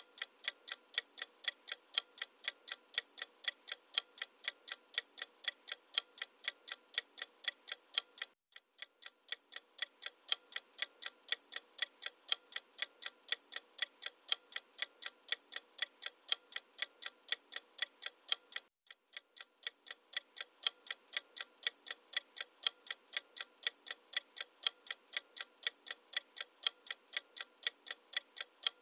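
Clock-ticking sound effect used as a quiz countdown timer: rapid, even ticks, about three a second. It breaks off for a moment twice and starts again.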